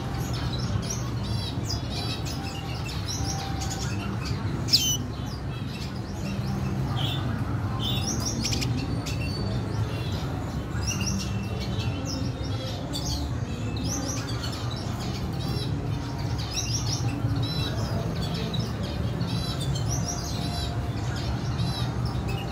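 Red siskins chirping in a cage, a run of many short, quick high calls over a steady low hum. A single sharp click sounds about five seconds in.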